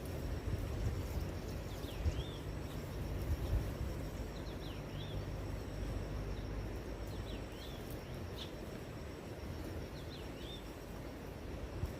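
Outdoor forest ambience: a small bird gives short down-and-up chirps every second or two over a steady low rumble, with a faint steady high insect drone.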